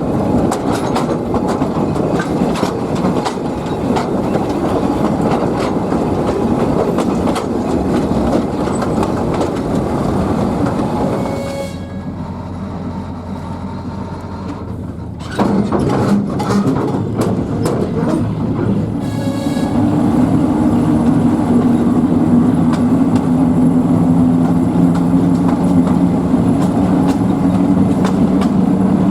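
Narrow-gauge train hauled by a TU2 diesel locomotive: wheels clattering over the rail joints with frequent clicks. About twelve seconds in the clatter drops away to a quieter low hum. Then the diesel's drone comes back louder and steady, with a held tone from about twenty seconds in.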